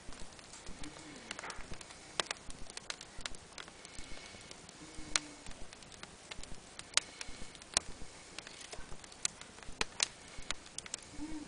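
Wood fire with paper kindling crackling in a fireplace: irregular sharp pops and snaps, several a second, over a faint steady hiss.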